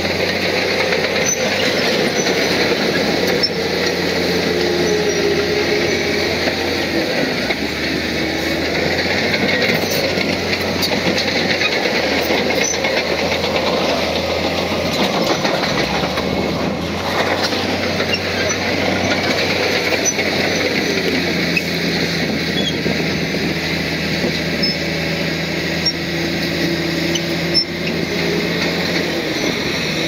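Crawler bulldozer's diesel engine running steadily under load, its low drone stepping up and down every few seconds, with the metallic clatter and squeal of its steel tracks.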